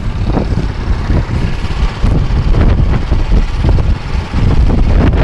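Strong wind buffeting a phone's microphone: a loud, uneven low rumble.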